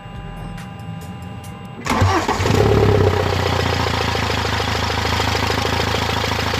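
Faint background music, then about two seconds in a BMW N47 four-cylinder diesel engine cranks, catches with a brief flare and settles into a steady idle. This is its first start after an oil cooler replacement, run to check for leaks.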